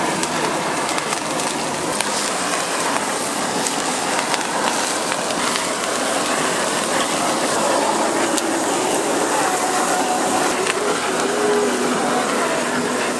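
Steady hiss of a handheld butane blowtorch flaming shrimp and beef skewers on a sizzling flat griddle, with faint voices in the background.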